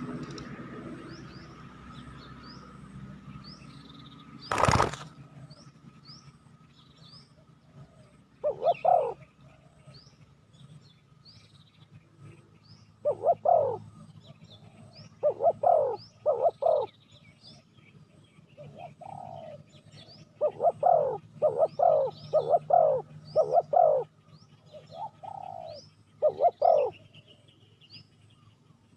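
Spotted dove cooing in short repeated phrases, with a small bird's high chirps repeating about once a second throughout. A single sharp knock comes about five seconds in.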